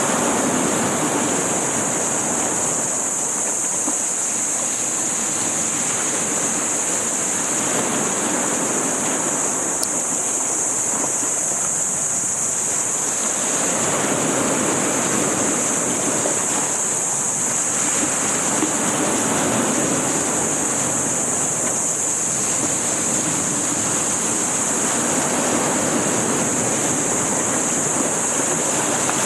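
Sea waves and wind on the microphone, surging and easing every six or seven seconds, with a steady high hiss over them.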